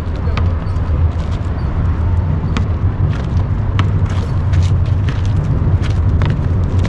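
Outdoor pickup basketball on an asphalt court: scattered sharp taps from players' footsteps and the ball bouncing, over a steady low rumble.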